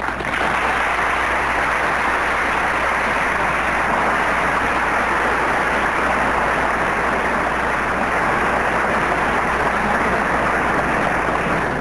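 A large audience applauding in a lecture hall: a dense, steady clatter of clapping that fades away near the end.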